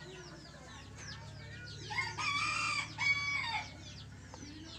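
A rooster crows once, about two seconds in, for about a second and a half, its call dropping in pitch at the end. Behind it are many faint, short, high falling chirps and a low steady hum.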